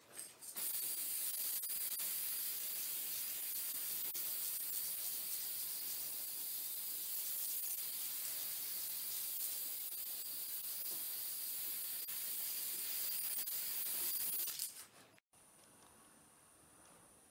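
Aerosol spray can of clear varnish hissing in one long continuous spray, cutting off abruptly about fifteen seconds in.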